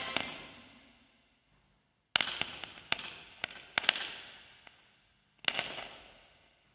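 The end of the backing music dies away, then scattered sharp pops and clicks come in two clusters, each with a long echoing tail.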